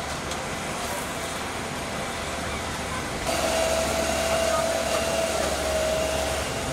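Tandem asphalt road roller's engine running steadily as the machine drives over fresh asphalt, a constant low hum. About three seconds in it gets louder, with a steady whine on top.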